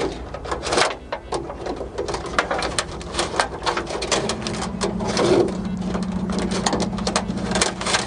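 Camera cable being pushed and pulled through holes in a car's sheet-metal trunk lid, with quick scraping, rustling and clicking as the wire rubs and taps against the metal. About halfway through, a steady low hum joins in.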